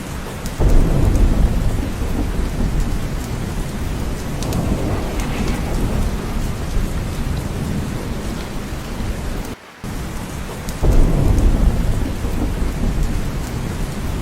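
Steady heavy rain with thunder rumbling twice, once about half a second in and again about ten seconds later. The sound briefly cuts out just before the second rumble.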